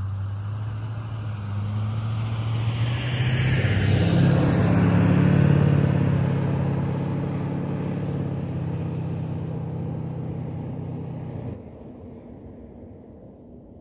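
A pickup truck driving past and away down the road: a steady engine and tyre hum, loudest about five seconds in, then fading into the distance. The sound drops off sharply near the end, leaving a faint steady insect trill.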